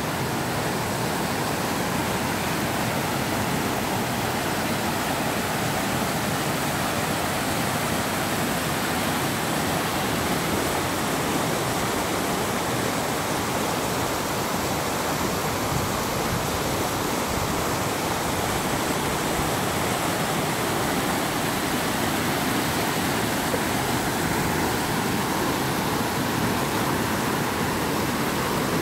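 Rain-swollen creek rushing down a run of small cascades over rock slabs: a steady, even rush of white water.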